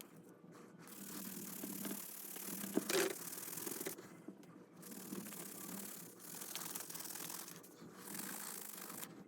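Horsehair brush scrubbing over a leather baseball glove in repeated strokes about a second long, with a brief knock about three seconds in.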